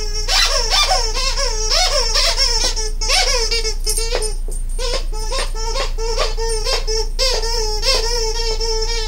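Squeaker in a plush owl dog toy squeaking over and over as a dog chews it, about three squeaks a second, with a short pause about four seconds in.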